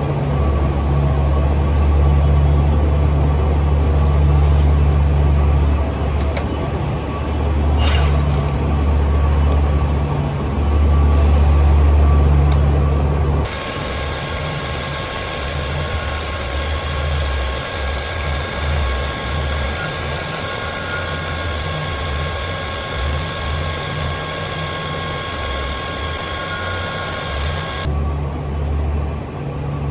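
An electric power tool running steadily while opening a laminated steel padlock, with a strong low hum. About thirteen seconds in, the sound changes abruptly to a hissier, higher tone, then changes back near the end.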